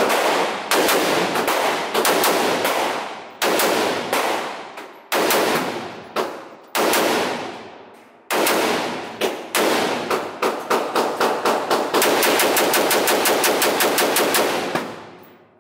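AR-style rifle fired in quick strings of shots with short pauses between them, ending in a fast run of shots near the end. Each shot rings out with a reverberating tail off the walls of an indoor range.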